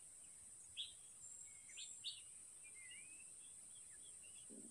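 Faint outdoor morning ambience: a steady high insect drone with a few short, sharp bird chirps about a second in and around two seconds, then softer warbling calls. A soft low bump near the end.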